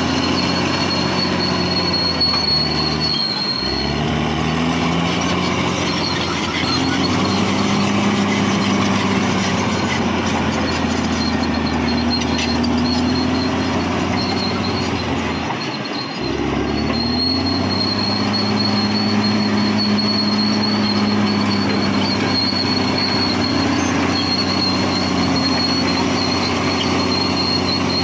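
Caterpillar D6R XL crawler bulldozer working: its diesel engine runs under load while the steel tracks squeal and clank. The engine note drops twice, about three and sixteen seconds in, and climbs back up each time.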